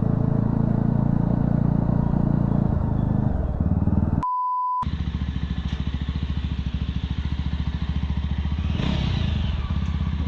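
Yezdi Scrambler's 334 cc single-cylinder engine running without its exhaust silencers, giving an open, unmuffled exhaust note while riding at a steady pace. About four seconds in, the engine sound cuts out for half a second under a single steady beep tone. The engine then carries on with a slower, evenly pulsing beat.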